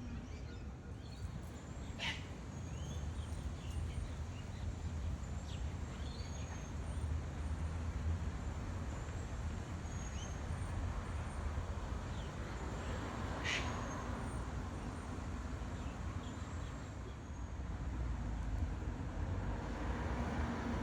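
Birds calling over a steady low rumble: two short, harsh calls, about two seconds in and again around thirteen seconds, with thin high chirps scattered between.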